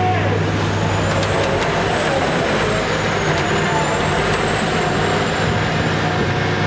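Heavy machine's diesel engine running steadily under load, with a thin high whine above it.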